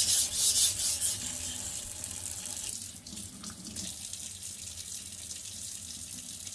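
Steel knife blade scraped under heavy pressure across a wet, coarse King 220-grit whetstone: a few quick, loud gritty strokes in the first second, then a steadier, softer wet hiss that drops lower about three seconds in.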